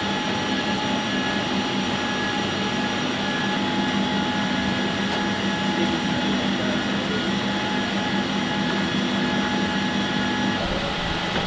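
Steady machinery whine and drone on an aircraft flight line: several steady tones over an even rush, with no let-up. A deeper rumble comes in near the end.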